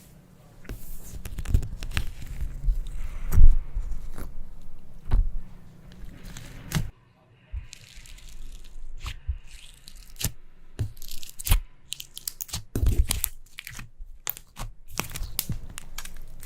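Slime being squeezed and stretched by hand, with dense crackling, crunching and popping, cut by a brief dropout to silence about seven seconds in.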